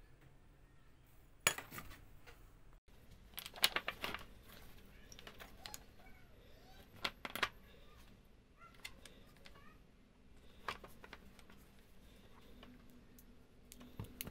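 Small metal jig parts being handled on a workbench: scattered light clinks and sharp taps of aluminium pieces and bolts, the loudest about a second and a half in and around four seconds in.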